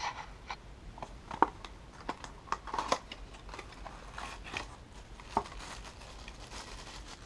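Small paperboard box being opened and a plastic AC power adapter with its cord lifted out: scattered crinkling rustles and sharp clicks, the sharpest about a second and a half in.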